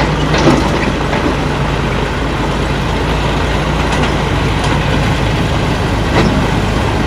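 John Deere tractor's diesel engine running steadily as the tractor drives through shallow river water, with water splashing and churning around its wheels.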